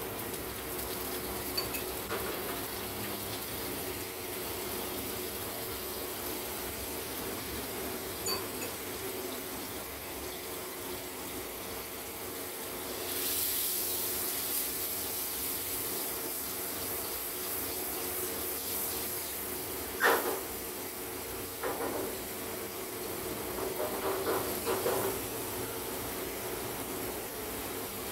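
Butter melting and sizzling in a frying pan on a gas burner, over a steady background hum; the hiss grows louder about halfway through. A few short knocks and clinks of cookware follow near the end.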